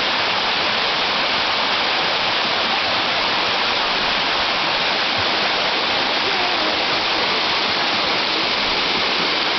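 Waterfall: falling water making a steady, loud, even rush that does not change.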